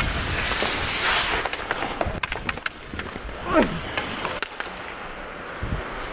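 Ice hockey skate blades scraping and carving the ice, with a run of sharp clicks and taps from sticks and pucks hitting the ice, about two and four seconds in. A short falling tone sounds about three and a half seconds in.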